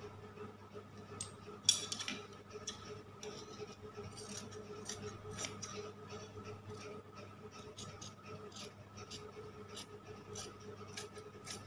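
Fabric scissors snipping through cloth in a series of short sharp cuts, with one louder click about two seconds in, over a steady low hum.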